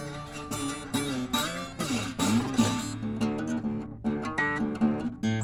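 Guitar music, plucked and strummed acoustic guitar.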